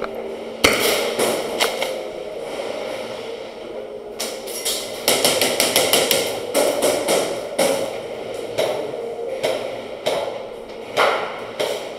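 Airsoft gunfire: a series of sharp clicks and knocks, with a dense rapid run about four to eight seconds in, of guns firing and BBs striking hard surfaces.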